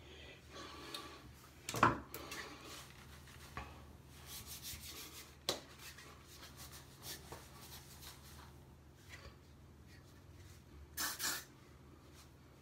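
Faint rubbing and brushing noises as hair is brushed and smoothed by hand, with a few short scrapes and a soft click.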